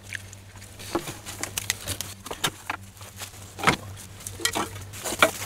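Irregular rustling, scraping and clinking of gloved hands pulling dead leaves, twigs and rusty debris out of a scrapped car's engine bay, with a couple of sharper knocks against metal.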